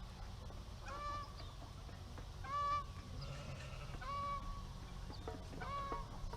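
Domestic fowl calling: a short, flat, honking call repeated four times, about every second and a half.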